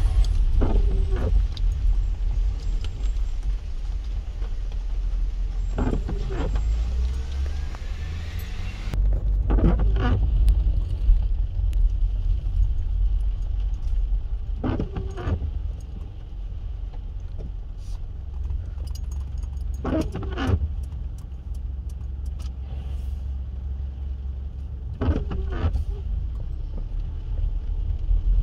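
Steady low rumble of a car driving slowly, heard inside its cabin. A short squeaky sweep comes about every five seconds, the windscreen wipers on intermittent across a wet windscreen.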